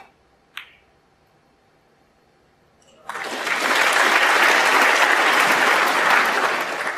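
Two sharp clicks of snooker balls, the cue striking the cue ball and then a ball-on-ball contact half a second later. About three seconds in, the audience breaks into applause that lasts about four seconds and tails off at the end.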